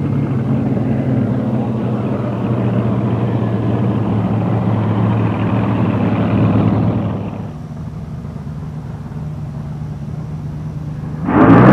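Drag racing car's engine running steadily. About seven seconds in it falls away to a quieter low engine rumble, and near the end a much louder engine suddenly revs up as another drag car starts its burnout.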